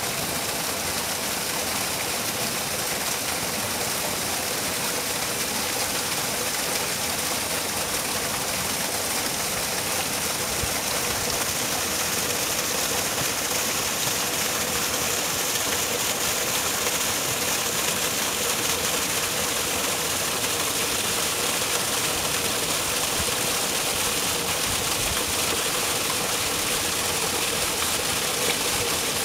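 Steady rush of a small mountain stream spilling over granite rocks into a pool, an even hiss of falling water.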